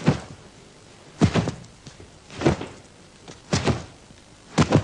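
Five sharp thuds about a second apart, one with each turn and punch of a Wing Chun turning-punch drill: the feet shifting on the wooden floor and the snap of the strike.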